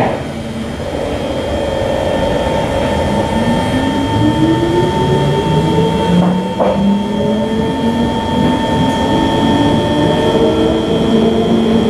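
Kawasaki C151 metro train heard from inside the car as it picks up speed: its traction motors whine in several tones that climb steadily, over steady running noise and a thin high tone. A brief knock comes about six and a half seconds in.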